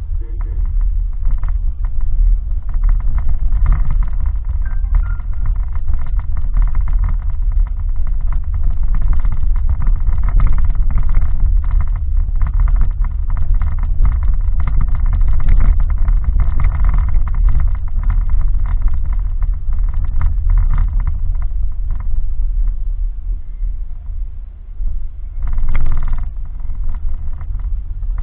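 A car driving slowly over a rough unpaved road, heard from a dashcam inside the cabin: a steady low rumble of engine and road noise with many small knocks and rattles. Near the end a short, louder rush of noise rises and falls.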